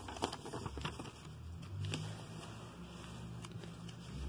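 Glossy paper catalogue being handled and its pages turned: faint paper rustling with scattered light ticks.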